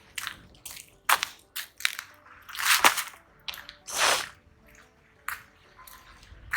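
Footsteps crunching in snow, an uneven step every half second or so, with two longer scraping crunches near the middle.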